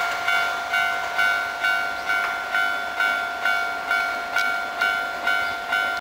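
Japanese railway level-crossing warning bell ringing steadily at a little over two strikes a second, each strike a bright pitched ding. It signals that the crossing is still closed.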